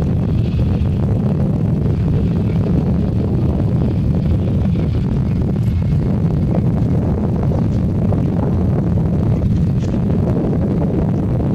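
Airbus A320neo's CFM LEAP-1A turbofan engines at takeoff thrust during the takeoff roll: a steady, loud low rumble.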